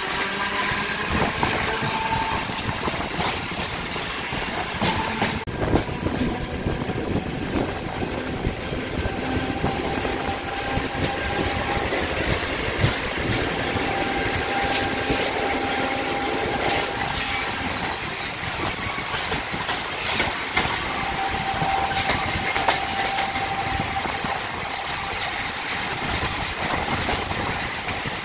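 Central Railway suburban EMU local train running close by, its wheels clattering steadily over rail joints. A thin steady whine comes and goes in places.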